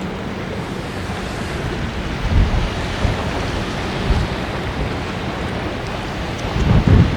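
Strong wind buffeting the microphone: a steady rushing noise with heavier low gusts about two and a half seconds in and again near the end.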